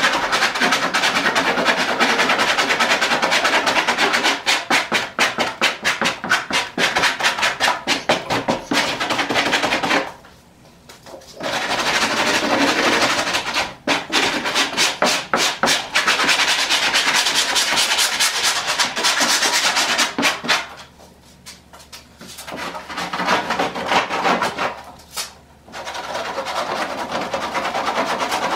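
Rapid rasping strokes of a hand tool scraping the old, crumbling foam off a car headliner board, with a few brief pauses.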